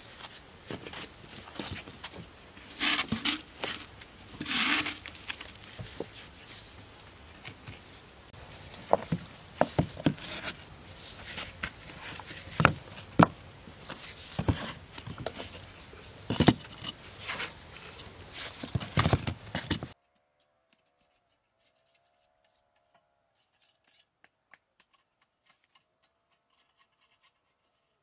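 Rough stones being handled and set into wet mortar: rubbing and scraping of rock on rock and cement, with sharp knocks of stone against stone. About two-thirds of the way through the sound drops away almost to silence.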